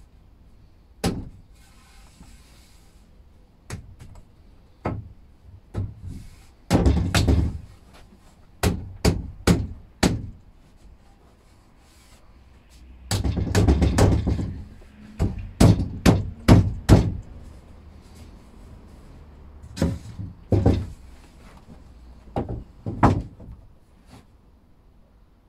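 Wooden knocks and thuds as pine rails are pushed and knocked together onto Domino tenons and the frame is handled and laid on the workbench: many sharp knocks in clusters, with some scraping between them.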